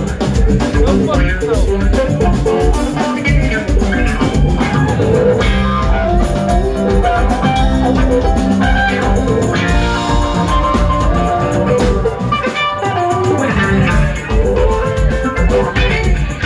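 Live jazz-funk band playing an instrumental: electric guitar, electric bass, keyboard and drums with hand percussion.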